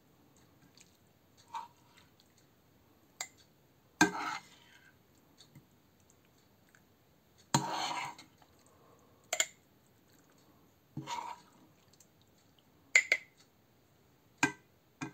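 A metal spoon scraping a frying pan and knocking against a glass jar as fried butter mushrooms are spooned from pan to jar: about eight separate scrapes and clinks a second or two apart, the loudest about four seconds in and near the middle.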